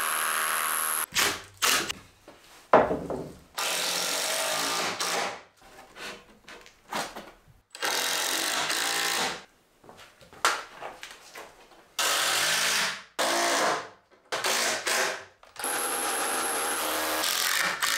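Makita cordless hammer drill boring through a timber bottom plate into a concrete floor, to anchor the wall frame. It runs in several bursts of a second or two each, with short knocks between them; the loudest knock comes about three seconds in.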